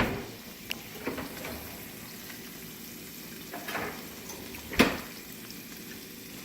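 Food sizzling steadily in hot oil in a frying pan, with a few sharp knocks of utensils or cookware; the loudest knock comes near the end.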